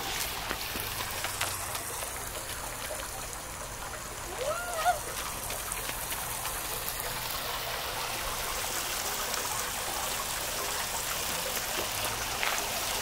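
Water trickling steadily along a shallow concrete play stream and spilling over a ledge into a grated basin. A brief voice sounds about four and a half seconds in.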